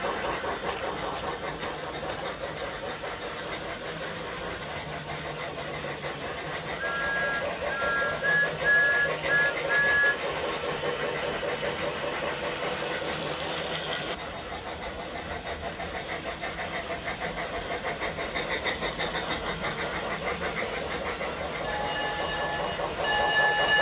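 Several toy trains (a Lionel Ready-to-Play Thomas, a Polar Express set and a Bachmann Thomas) running at once on their track, with a steady whirring, rapidly clicking noise of motors, gears and wheels on rail. A brief run of short high electronic tones sounds about a third of the way in. A toy train's electronic whistle, a chord of several notes, starts near the end.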